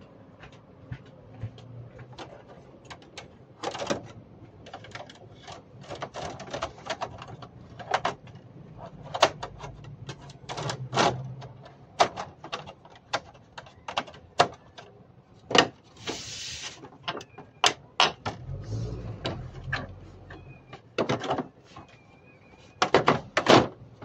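Irregular clicks, knocks and light clattering from hands and parts being worked on an air conditioner's outdoor unit, with a short hiss about two-thirds of the way through.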